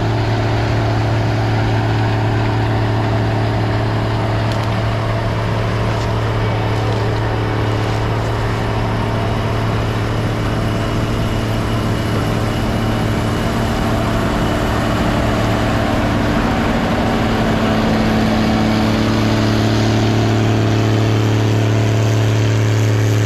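Heavy farm machinery's diesel engine running steadily under load, a loud, constant low drone that holds at one pitch throughout.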